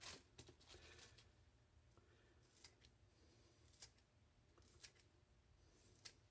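Kitchen scissors snipping green onions into small pieces: faint, sparse snips, several close together in the first second, then single ones about a second apart.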